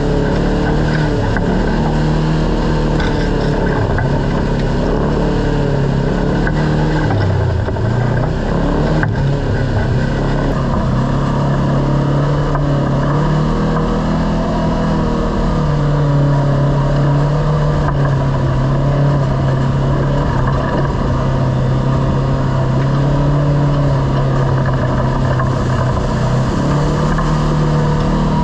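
Kawasaki KRX side-by-side's parallel-twin engine running under way. Its pitch rises and falls with the throttle, dips briefly about seven seconds in, then climbs and holds fairly steady.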